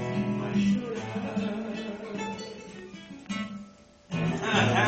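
Nylon-string classical guitar played solo, plucked and strummed chords ringing and fading away as the song's closing phrase. Just before the end a man's voice comes in.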